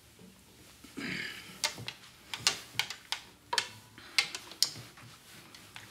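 Acoustic guitar being handled while a player settles in: a short rustle, then about ten sharp clicks and taps on the guitar and its strings, with no notes played.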